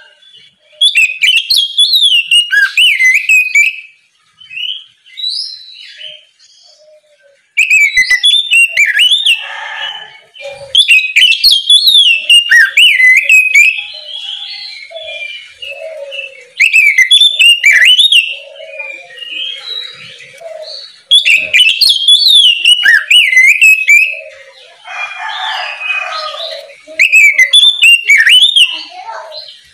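Oriental magpie-robin (kacer) singing its loud, open 'ngeplong' song: fast warbled whistles and trills in bursts of a few seconds, with quieter scattered notes in the gaps.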